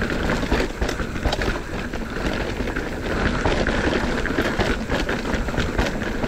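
Mountain bike riding fast down a dirt trail: tyres on loose ground and wind on the microphone, with constant rattling clicks and knocks from the bike over bumps.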